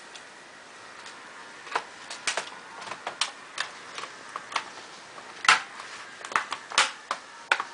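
Plastic laptop back cover being fitted and snapped into place: a string of irregular sharp plastic clicks and taps, two louder snaps a little past the halfway point.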